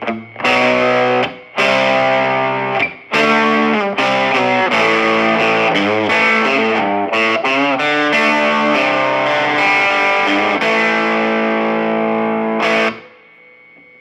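Fender Stratocaster played through a Fender Red Knob Champ 12 combo amp with overdrive: distorted chords struck in short stabs, bent notes in the middle, then a long held chord that stops near the end, leaving faint amp noise.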